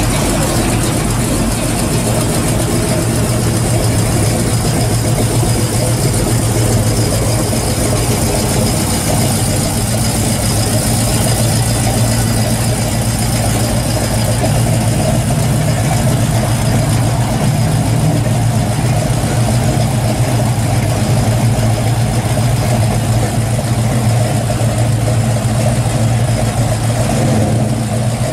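Pontiac GTO V8 running at a steady idle through its exhaust as the car rolls slowly past.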